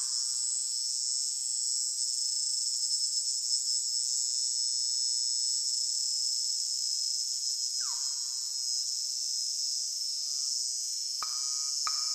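Electronic music soundtrack: a steady high-pitched insect-like buzz, with a falling pitched sweep at the start and another about eight seconds in, then a run of short clicking notes starting near the end.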